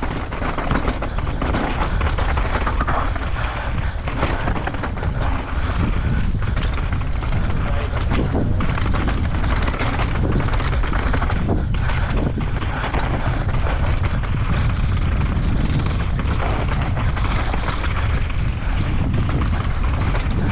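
Wind rumble on the microphone with frequent sharp knocks and rattles from a mountain bike riding fast down a rough, dusty trail.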